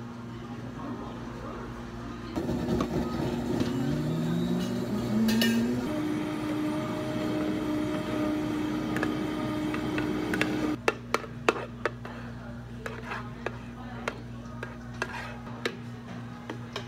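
A countertop blender starts with a rising whine, runs steadily for several seconds, then cuts off suddenly. Afterwards come scattered sharp clicks and knocks as frozen plum slush is poured and tapped out of the plastic blender jar into a cup.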